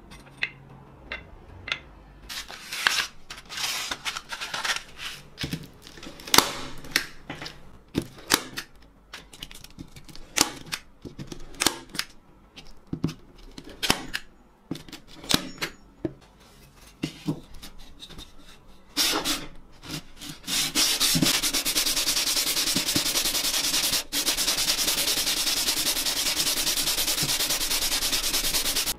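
Scattered knocks and taps as tools and a sheet of sandpaper are handled and laid out. About two-thirds of the way in, a wooden hand plane's body starts being rubbed back and forth on sandpaper to flatten its sole, making a steady scratchy sanding noise.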